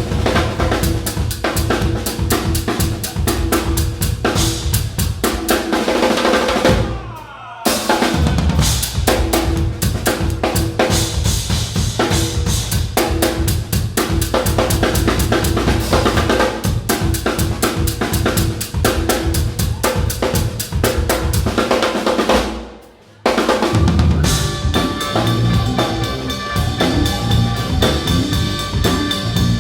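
A live band with a drum kit playing a fast, dense beat over a heavy bass. The band cuts out for a short break twice, about seven seconds in and again about twenty-three seconds in. After the second break, held chords come in on top of the beat.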